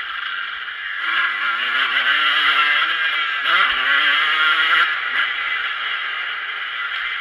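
Motocross bike engine heard through an on-board camera as the rider races. It picks up about a second in, rising in pitch, drops at a gear change about halfway, rises again, then eases to a steadier run near the end.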